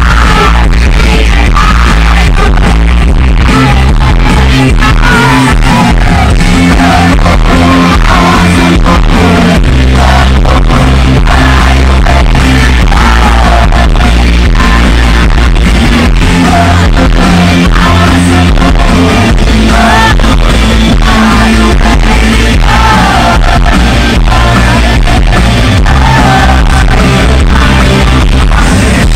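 Live pop-rock band playing loudly with a male lead vocal. The bass dominates, heard from right in front of it, with a steady beat of drum hits.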